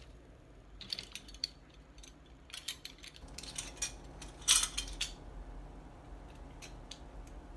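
Light clicks and clinks of a teaspoon and containers being handled while measuring out a powder, with a short louder rustling scrape about four and a half seconds in.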